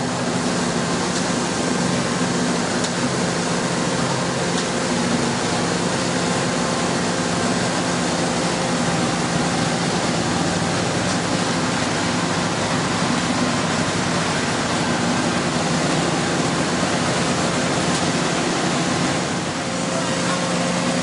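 Somero S-840 ride-on laser screed's engine running steadily as the machine screeds wet concrete: an even engine hum under a dense hiss.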